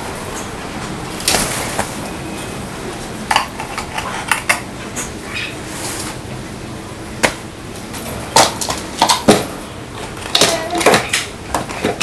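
A crow handling a small plastic water-jug cap in a wire cage: irregular sharp taps, clicks and knocks, some in quick clusters, as the cap is pecked and knocked against the perch and cage floor, over a steady background hiss.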